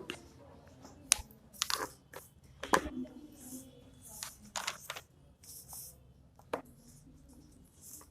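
Scattered light clicks, taps and rustles of pens and paper in a quiet classroom while notes are being written down, about ten sharp ticks spread unevenly with soft scratchy hiss between them.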